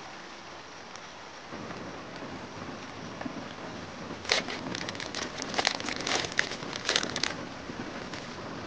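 A metal spoon stirring and clinking in a stainless steel mug of tea: a quick, irregular run of sharp clinks starting about four seconds in and lasting about three seconds, over a steady hiss.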